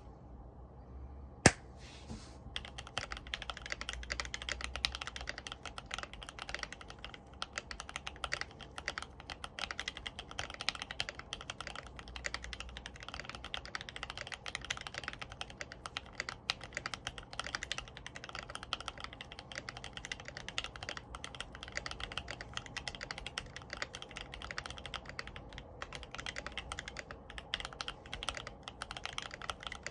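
Keychron Q1 mechanical keyboard with lubed and filmed Banana Split linear switches and GMK keycaps being typed on continuously. A single louder click comes about a second and a half in, and steady typing starts about a second later.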